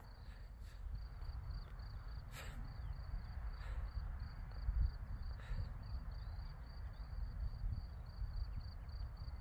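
A cricket chirping steadily in an even rhythm of short high chirps, about three a second, over a faint low rumble, with a few soft clicks.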